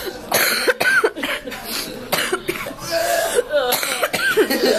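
Someone burping several times in a row.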